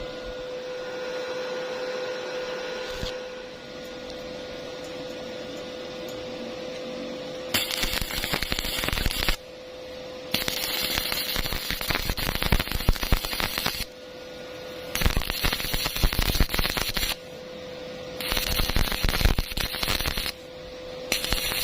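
Stick welding arc crackling in five runs of about two to three seconds each, with short breaks between them, over a steady hum. The first few seconds hold only the hum and a low background noise.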